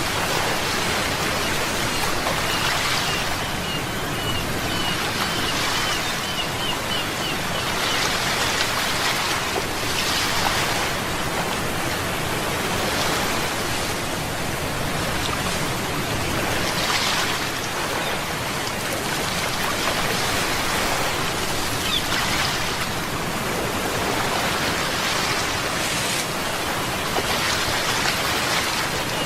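Sea waves washing ashore: a steady hiss that swells every few seconds. A run of short high chirps sounds a few seconds in.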